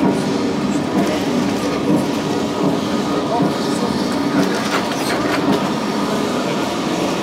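Vintage Lisbon tram 28 car running along its street rails, heard from inside the car: a steady running noise with a few sharp clicks about four and a half to five and a half seconds in.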